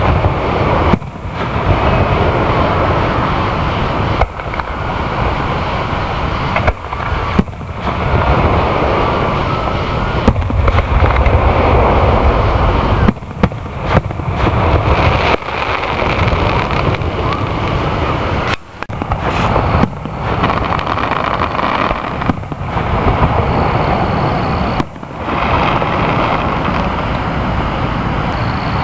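Aerial fireworks shells bursting in a dense, continuous barrage, loud on the camera microphone, broken by several brief gaps in the sound.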